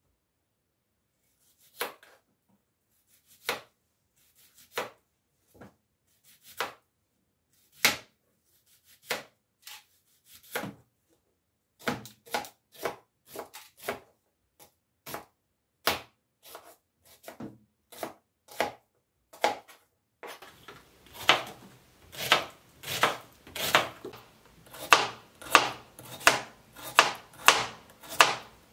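Chef's knife slicing a red onion on a plastic cutting board: separate sharp taps of the blade on the board, at first about one a second, then quickening. About twenty seconds in, faster chopping of a carrot, about two cuts a second, over a faint background noise.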